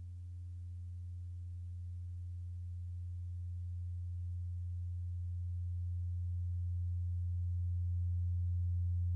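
A single low, steady electronic tone with faint higher overtones, slowly growing louder.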